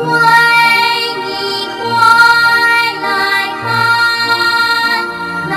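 Children's song: a voice singing held melodic notes over gentle backing music.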